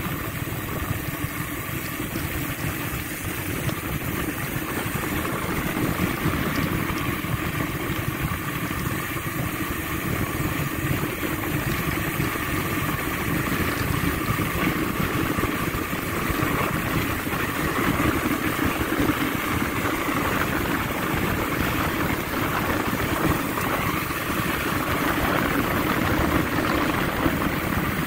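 Weapon Beast rear hub's freehub ratchet, with five extended pawls, buzzing steadily as the wheel freewheels: the loud hub sound check.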